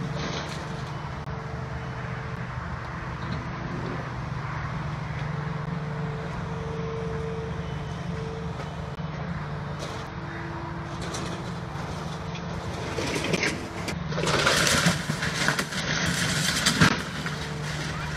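Kubota skid-steer's diesel engine running steadily with a wavering higher tone over it. About thirteen seconds in comes loud crunching and crashing as the bucket breaks through the mobile home's wall, ending in a sharp bang.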